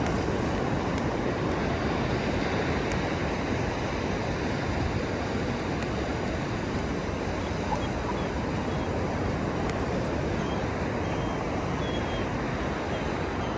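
Ocean surf washing onto the shore, a steady, unbroken rush of waves.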